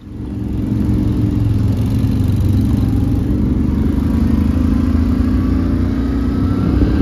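ATV (quad bike) engine running steadily while the quad is ridden along a dirt track, heard from aboard. It builds over the first second, then holds an even pitch.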